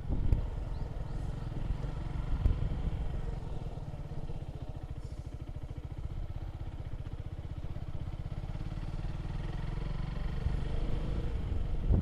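Vehicle engine running at low revs with a fast, even pulsing; it grows a little louder toward the end.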